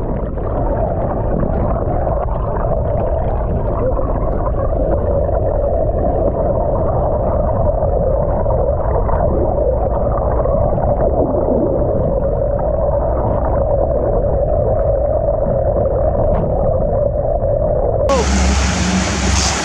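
Underwater sound picked up by a camera held beneath the surface alongside a moving boat: a muffled rushing of water with a steady droning hum through it. About 18 seconds in it switches suddenly to clear open-air sound.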